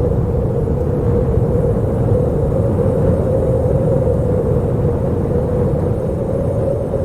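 Wind howling steadily: a continuous low rushing noise with a hollow held tone that wavers slightly.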